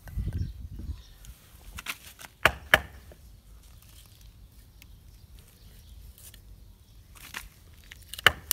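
Wooden baton striking the spine of a Taramundi fixed-blade knife, driving the blade at an angle into a dry branch: sharp knocks, a quick pair about two and a half seconds in and a loud one near the end.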